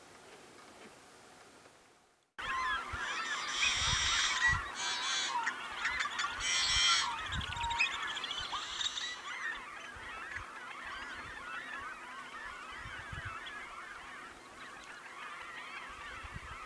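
Male yellow-headed blackbird giving its harsh, rasping song with wings spread in display: several loud, buzzing screeches in the first half. Underneath is a dense, continuous chorus of chattering marsh birds. The sound cuts in abruptly about two seconds in.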